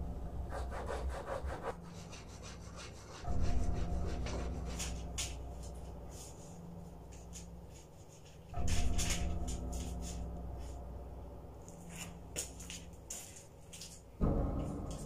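Eerie horror-film score: three deep booming hits, about five seconds apart, each ringing on as a low drone that slowly fades, with a scatter of sharp crackling clicks over the top.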